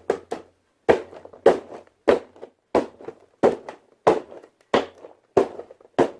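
A steady series of sharp knocks, about ten of them evenly spaced roughly two-thirds of a second apart, each ringing briefly, with lighter taps in between.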